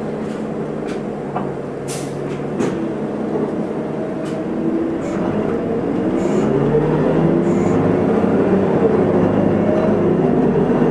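Isuzu Erga city bus's diesel engine, heard inside the cabin, idling with a few sharp clicks. About six seconds in the bus pulls away and the engine note rises and grows louder as it accelerates.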